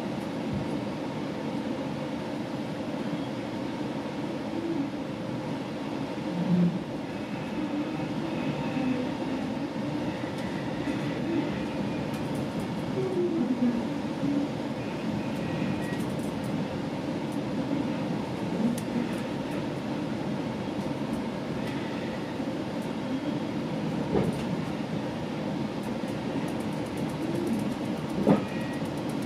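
A GO Transit commuter train in motion, heard from inside the passenger coach: a steady running rumble with wheels clacking over the rails, and a couple of sharper knocks near the end.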